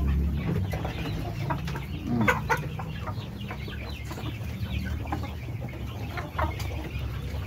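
A flock of kampung (Indonesian village) chickens calling in the coop: many short clucks and chirps overlapping, with one louder call about two seconds in, over a steady low hum.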